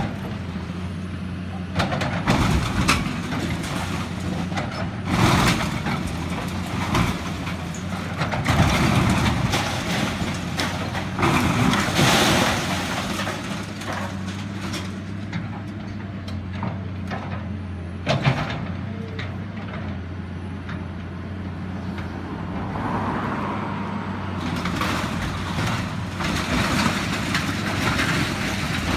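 Heavy demolition machinery running steadily, with repeated crashes and clatter of building debris breaking and falling; the loudest crashes come about 5 and 12 seconds in.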